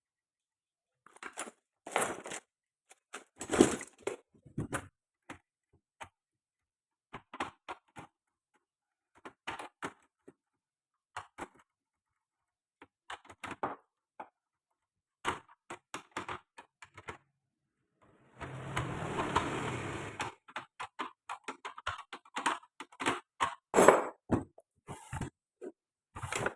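Small tools and parts being handled during an amplifier repair: scattered clicks, taps and knocks, with a steady hiss lasting about two seconds about two-thirds of the way in.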